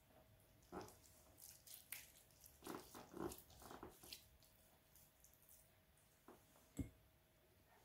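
Faint, irregular wet squelching of hands rubbing a spice marinade paste into the skin of a whole raw chicken, with one soft low thump near the end.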